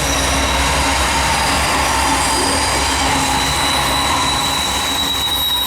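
Freight train cars rolling past while coasting downgrade: a steady rush and rumble of steel wheels on rail. About halfway through, a thin high squeal of wheel flanges sets in and holds.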